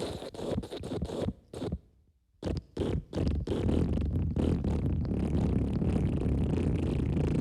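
Wet fart sound: a rapid sputtering run of short pulses, a brief pause about two seconds in, two short bursts, then one long, steady low rasp from about three and a half seconds on.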